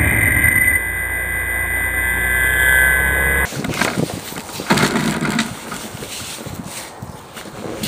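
Twin Exceed RC Alpha 300 electric motors and propellers of an RC plane running with a steady high whine. About three and a half seconds in it cuts off abruptly to uneven rushing, crackling noise that slowly fades.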